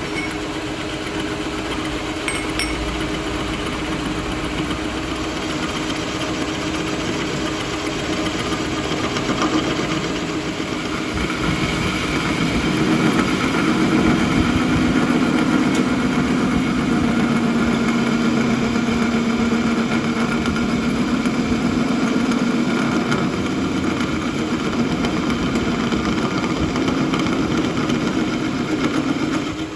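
Metal-working machine, most likely a lathe, running steadily with its tool cutting into a steel gear shaft. It grows louder about halfway through.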